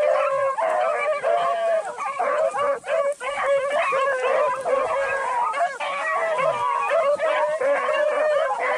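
Pack of beagles baying together, several hound voices overlapping without a break: the hounds are giving tongue on a rabbit's scent.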